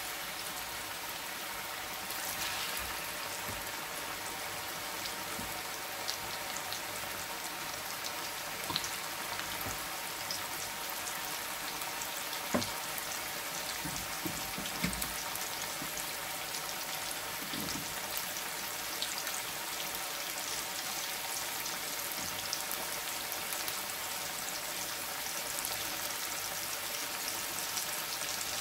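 Oil sizzling steadily around slices of breadfruit deep-frying in a pot, with scattered crackles and a few louder pops.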